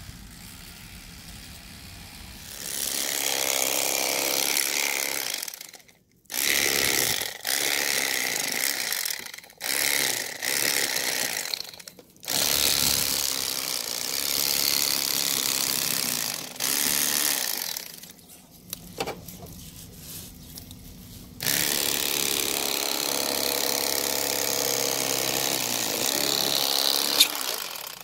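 Electric fillet knife buzzing as its serrated reciprocating blades cut through a walleye. It is switched on and off repeatedly: a few short bursts, then two longer runs of about six seconds each.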